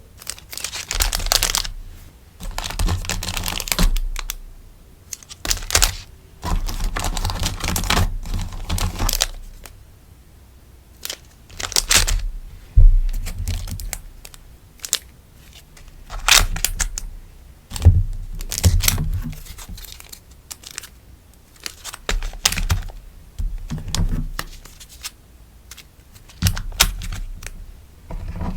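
Close-up rustling and crinkling of sticker sheets and packaging as stickers are packed, in irregular bursts. Sharp taps and clicks come between the rustles.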